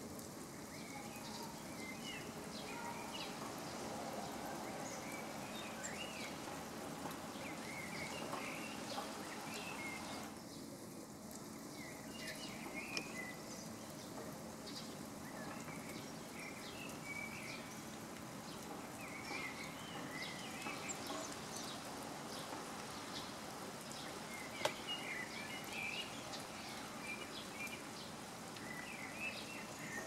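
Garden ambience: a steady background hum and hiss under scattered short chirps and calls of small birds, with a couple of faint clicks.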